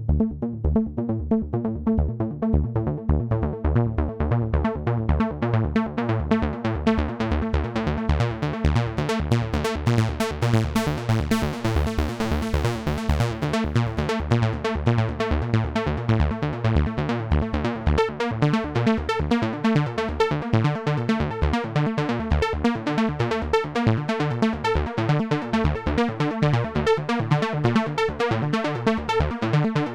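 Dave Smith Evolver synthesizer playing a sequenced patch: a fast repeating low pulse under steady held tones. The sound grows brighter about ten seconds in, and higher notes join about eighteen seconds in.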